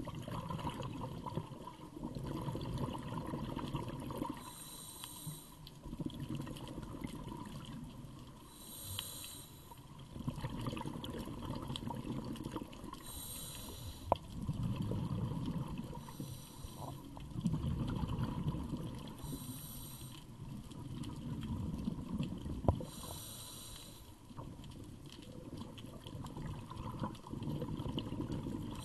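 Scuba diver breathing through a regulator underwater: a short hissing inhale every three to four seconds, each followed by a longer rumble of exhaled bubbles. Two sharp clicks, one midway and one later.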